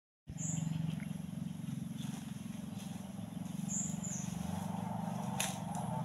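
Outdoor ambience that cuts in a moment after silence: a steady low hum with two short, high bird chirps and a sharp tap about five seconds in.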